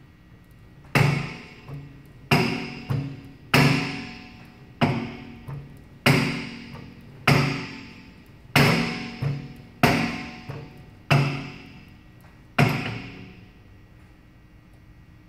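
Weight-stack plates of a gym leg machine clanking: ten ringing metallic hits about every 1.3 seconds, most followed by a lighter knock, stopping a few seconds before the end.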